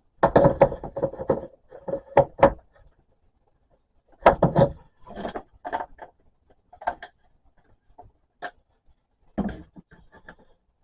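PVC pipe and plastic fittings being handled and pushed into place: irregular knocks, clunks and scraping rubs in several bursts with short pauses between.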